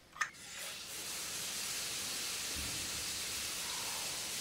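Shower spray running, a steady hiss of water that fades in within the first second.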